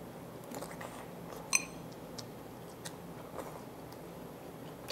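Quiet eating: a man chewing fish cake, with a few soft ticks of metal chopsticks against a ceramic bowl and one sharper clink about a second and a half in.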